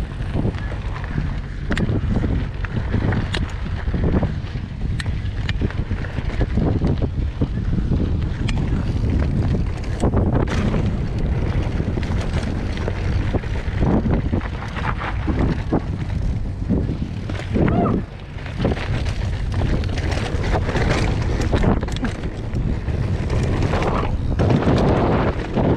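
Mountain bike being ridden over a rough dirt trail: heavy wind buffeting on the microphone, with frequent short knocks and rattles from the bike over bumps.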